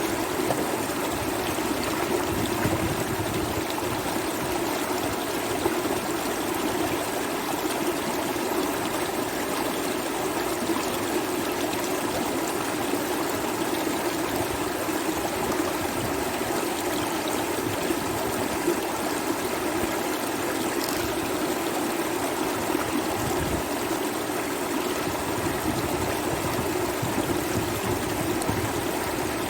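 Flooded river rushing steadily, a constant roar of moving water.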